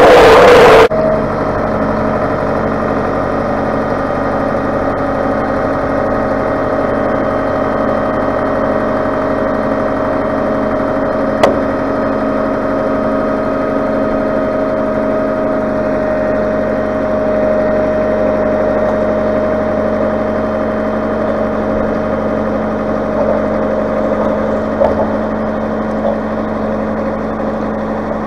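Tractor engine idling steadily, after a short burst of louder driving noise that cuts off about a second in. A single sharp click sounds near the middle, and a few light knocks come near the end.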